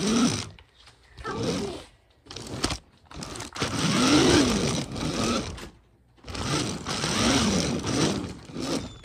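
A child imitating a car engine with their voice: several raspy vroom sounds that rise and fall in pitch, broken by short pauses, with the longest one about halfway through.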